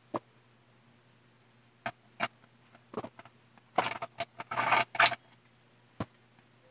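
Mouth and handling sounds of someone eating and drinking: a few separate sharp clicks and smacks, and about four seconds in a loud burst of rustling, hissing noise lasting just over a second.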